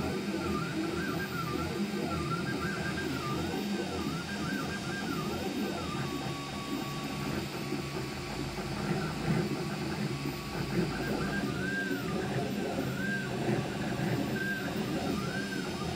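FDM 3D printer printing PLA, its stepper motors whining in a pitch that keeps rising and falling in short arcs as the printhead moves, over a busy mechanical rattle.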